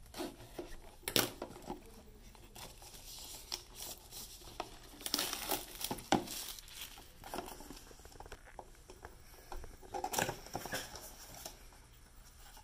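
Plastic shrink wrap being crinkled and torn off a board game box by hand, irregular crackling with a few louder rips.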